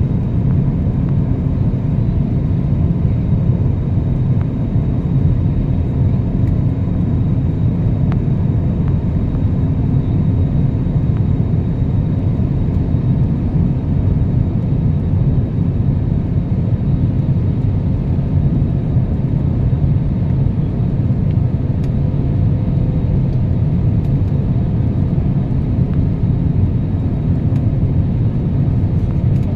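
Passenger airliner cabin noise: a loud, steady low rumble of engines and airflow, with a faint steady hum over it.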